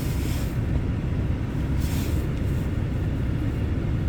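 Steady low rumble of a 2018 Nissan Kicks running at idle, heard inside the cabin, with a few short faint hisses.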